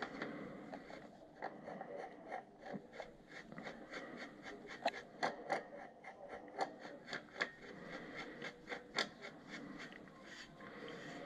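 Silencer being screwed by hand onto an airsoft carbine's threaded barrel: quiet rubbing with many irregular small clicks as it is turned.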